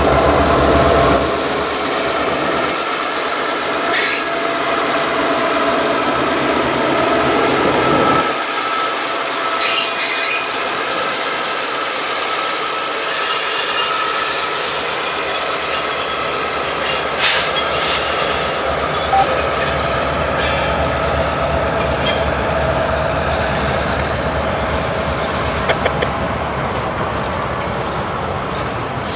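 Freight train passing slowly: the trailing EMD GP38AC diesel locomotive's engine rumbles by in the first second or so, then tank cars roll past with a steady thin wheel squeal and a few sharp clanks.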